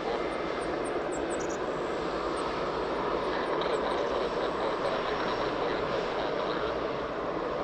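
Airliner engines on an arriving aircraft, a steady rushing noise that holds level without rising or falling.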